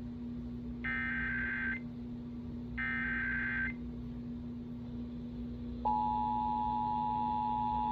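Emergency Alert System SAME header: two short bursts of buzzy, warbling data tones about a second apart. After a pause of about two seconds, the EAS two-tone attention signal (853 and 960 Hz) starts about six seconds in and holds steady. A low steady hum runs underneath. The sequence opens a Required Monthly Test alert.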